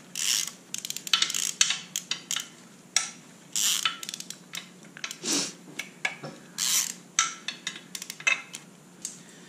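Hand ratchet clicking in repeated short bursts as bolts are loosened in the aluminium upper oil pan of a Nissan VQ37VHR V6, with metal clinks of the wrench and bolts in between.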